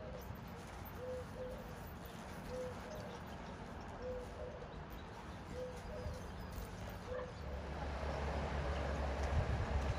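A bird repeating a short, low cooing note about every one and a half seconds. A low rumble comes up near the end and becomes the loudest sound.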